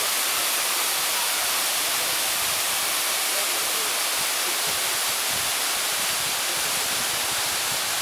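Steady rush of a waterfall cascading down rock into a pool.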